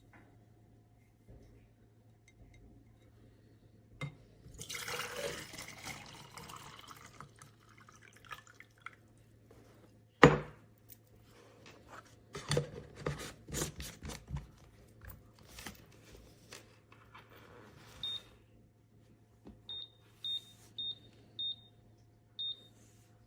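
Water pouring for a few seconds, followed by one sharp loud click and a cluster of clicks and knocks, then a run of short, high electronic beeps.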